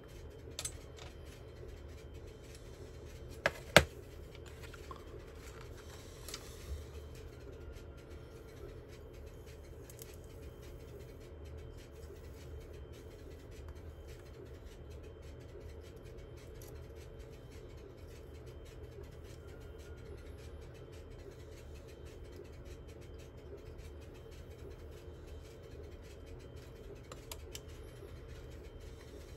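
Small tools and parts being handled on a workbench during a circuit-board repair. A few light clicks and knocks come in the first seven seconds, with one sharp click, the loudest, about four seconds in, over a steady low hum.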